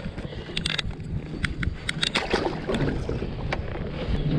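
Wind on the microphone and water against a kayak hull, with several sharp clicks and knocks of handling as a largemouth bass is held and let go. A steady low hum sets in near the end.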